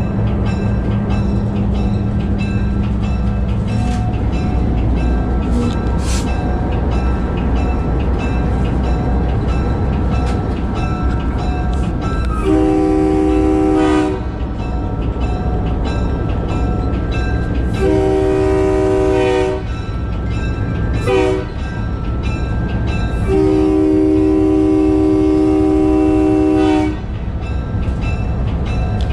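Diesel locomotive running under way, heard from inside the cab, sounding its multi-chime air horn in the long-long-short-long pattern of a grade-crossing warning, the last blast held about three seconds.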